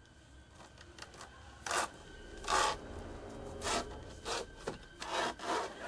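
A run of short scraping, rasping strokes, irregular and coming closer together near the end: the sound of something dragging or scratching at a bedroom door in the dark.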